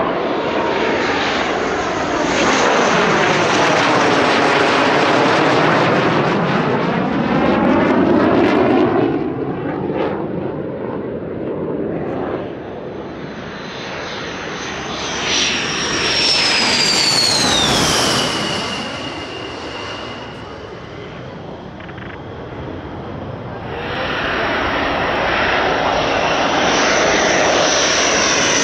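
Low-flying fighter jets passing overhead one after another. A loud jet roar with sweeping, phasing tones runs through the first ten seconds, a high turbine whine falls in pitch as a jet goes by midway, and the roar builds again near the end.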